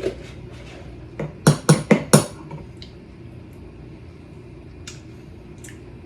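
A utensil clinking against a dish: four quick sharp clinks about a second and a half in, then a few faint taps.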